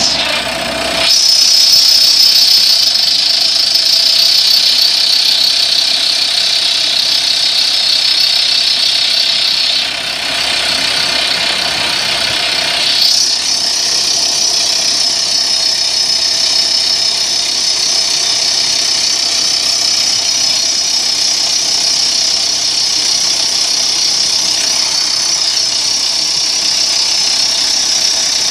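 BPI 112 rock drill rig drilling a production blast hole in quarry rock: a loud, steady drilling noise with a strong high hiss as dust is blown out of the hole. The noise dips briefly about ten seconds in.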